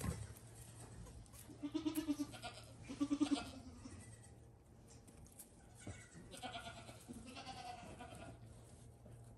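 Goats bleating: two loud, quavering bleats in the first few seconds, then two higher-pitched bleats after about six seconds.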